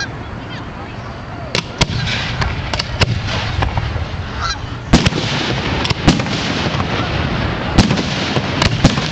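Aerial fireworks shells launching and bursting in a string of sharp, irregularly spaced bangs, the loudest about five seconds in, over a steady background din.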